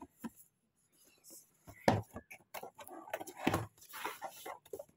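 Cardboard box being handled and set down on a glass tabletop: a few sharp knocks, the clearest about two seconds in and again past three seconds, between rustling scrapes of cardboard.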